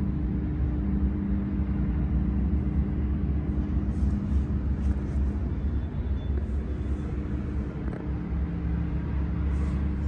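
Steady low mechanical rumble with a constant droning hum, with a few faint ticks.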